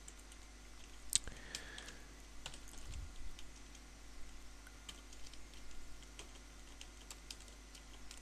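Typing on a computer keyboard: faint, irregular keystrokes.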